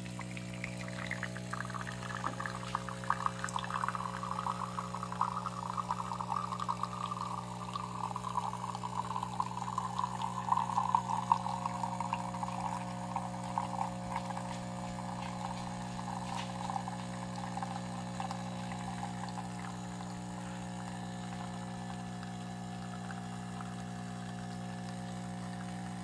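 De'Longhi PrimaDonna S bean-to-cup coffee machine dispensing an extra long coffee: a steady pump hum under a trickling pour into the cup. The pour slowly drops in pitch and fades out about three-quarters of the way through, leaving the hum.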